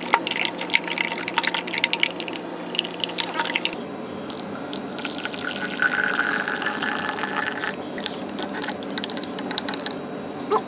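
A metal spoon clinking and scraping against a glass jar as cocoa powder is stirred into water. A few seconds in, hot water is poured from a jug into a second glass jar for a couple of seconds, a steady filling sound, followed by a few more light clinks.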